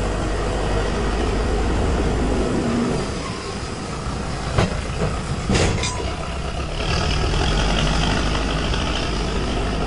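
Backhoe loader's diesel engine running, with a few sharp knocks about halfway through.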